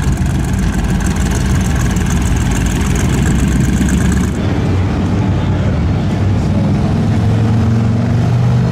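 Motorcycle engines running, loud and low, with an abrupt change in the sound about four seconds in.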